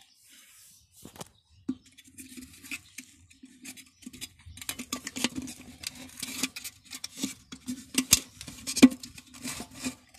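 Metal parts of a dismantled jet pump handled by hand: fingers scraping and tapping on the impeller seat, shaft and housing. The result is a run of small clicks and scrapes, sparse at first and much busier from about four seconds in.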